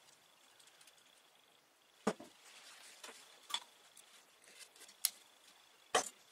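A few sharp knocks and clicks of objects being handled and set down on a wooden workbench, with quiet between them. The loudest comes about two seconds in and another near the end.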